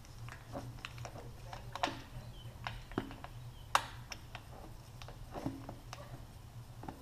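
Irregular light clicks and knocks of hand tools and metal parts being handled during work on a motorcycle, with one sharper knock a little before the middle, over a steady low hum.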